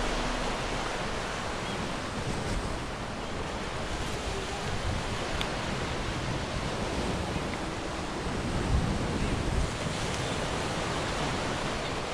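Ocean surf washing onto a sandy beach, a steady wash of breaking waves, with wind buffeting the microphone now and then, most around nine seconds in.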